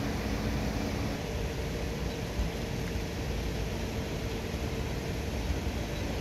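Steady rumble and hiss of vehicle noise, with a faint hum that moves to a higher pitch about a second in.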